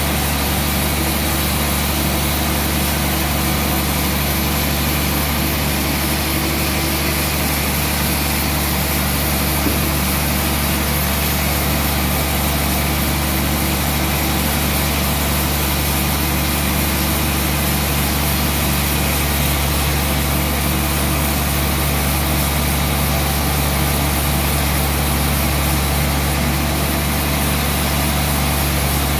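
Large band sawmill running steadily: an even machine drone with a constant low hum that does not change.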